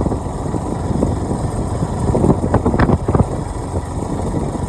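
Engine of a moving vehicle running steadily while riding, with a cluster of short knocks about two to three seconds in.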